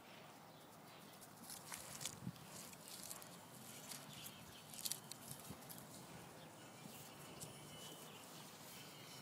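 Faint crackling and rustling of dry grass and dead leaves being stirred, with a few sharp clicks in the first half.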